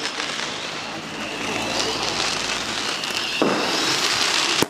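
Fireworks going off close by: a dense run of crackling pops and bangs that grows louder and thicker about three and a half seconds in.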